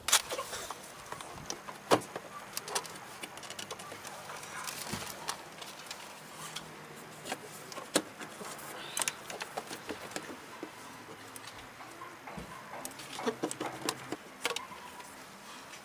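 Scattered clicks and knocks of hand work under a car bonnet: steel locking pliers on a hose clamp, then a plastic air intake hose being worked loose and handled.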